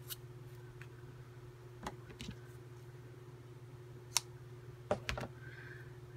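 A few light clicks and taps from hands handling lace trim and fabric pieces on a cutting mat, the sharpest about four seconds in and a quick cluster just after five seconds, over a faint steady hum.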